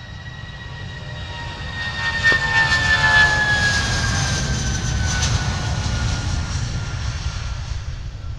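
Jet airliner passing close by. The engine noise swells to a peak a few seconds in and then fades, over a deep rumble, while a high fan whine glides steadily down in pitch as the aircraft goes past.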